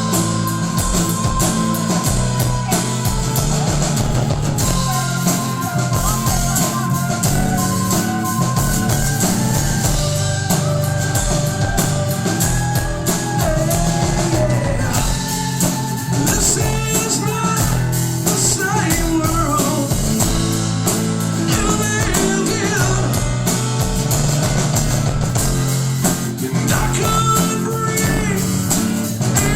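Rock band playing live: electric guitars, bass and drum kit at a loud, steady level, with some singing.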